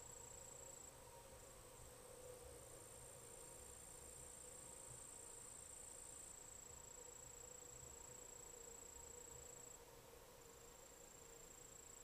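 Faint, steady high-pitched insect trilling of an evening chorus, the pitch stepping slightly as singers drop in and out about a second in and again near the end.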